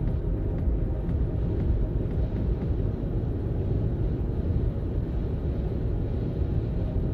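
Steady low road rumble of a car cruising at highway speed, tyre and wind noise heard from inside the cabin.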